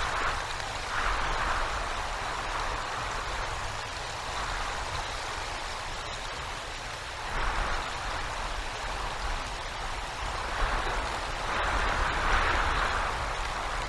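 Winter storm noise at the nest: a steady rush of wind and icy rain over a low rumble, swelling in gusts every few seconds, loudest near the end.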